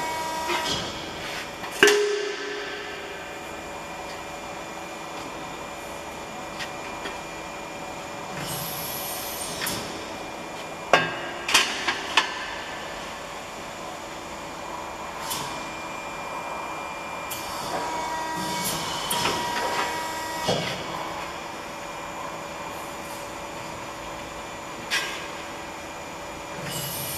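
Amada HFE 100-3 hydraulic CNC press brake running with a steady hum while sheet metal is bent in it. Sharp metallic clanks come from the sheet and tooling: a loud one about two seconds in, a quick run of three near the middle, and single ones later.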